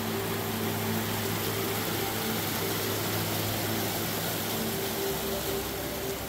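Steady rush of a white-water mountain creek flowing beneath a log footbridge, with soft held notes of background music underneath.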